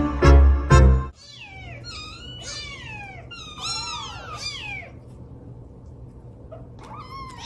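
Young kittens mewing over and over in high, thin calls that fall in pitch, several overlapping at once, quieting for a moment before a few more near the end. Loud music plays for about the first second before a cut.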